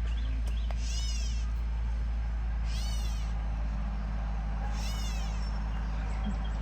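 A songbird calling: a short, high burst of quick arched notes, repeated about every two seconds, three times.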